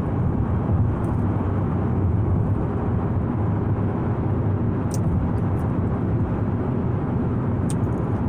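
Steady road and engine noise inside a moving car's cabin, a low, even rumble, with a faint click about five seconds in.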